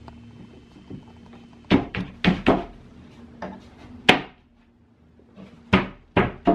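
About seven sharp knocks and thuds, irregularly spaced, from particleboard cabinet panels being handled and fitted together during flat-pack assembly.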